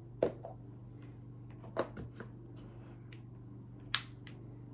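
Hard plastic clicks and knocks as a cool mist humidifier's mist lid is popped off and another lid fitted on, a few separate sharp clicks about a second or two apart.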